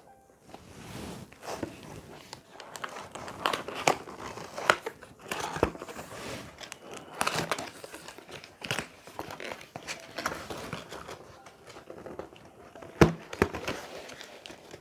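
Cardboard shipping box and its packing being pulled and torn open by hand: irregular crinkling, tearing and scraping, the packing strong and hard to open. A sharp knock about 13 seconds in is the loudest sound.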